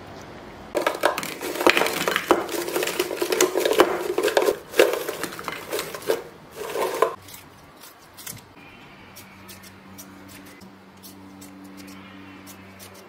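Clattering and rustling of a plastic container as rolls of thin-sliced beef brisket are shaken out into an enamel tray, lasting about six seconds. After that, small snips of kitchen scissors cutting squid over a low steady hum.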